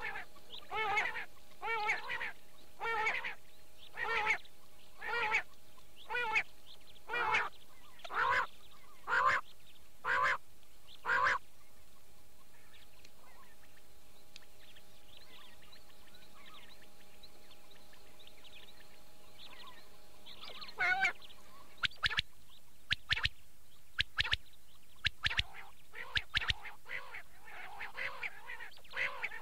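Quail calling: a short call repeated about once a second for some eleven seconds, then a pause with only a faint steady hum, then sharper, quicker calls and clicks from about twenty seconds in.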